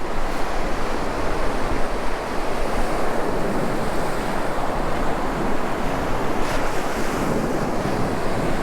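Steady wash of North Sea surf breaking on the beach, with wind buffeting the microphone.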